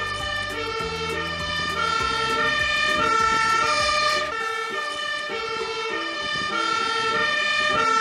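Two-tone siren of a Belgian fire engine, a MAN aerial-ladder truck with a Magirus Multistar ladder, alternating high and low notes about every half second, over a low rumble that stops about halfway through.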